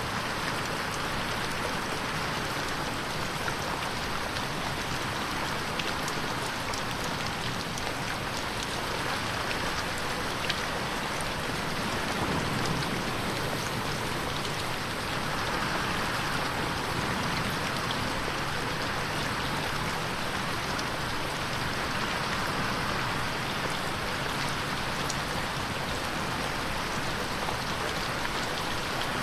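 Steady rain pattering on a window, a continuous hiss with fine scattered drop ticks, swelling slightly in places.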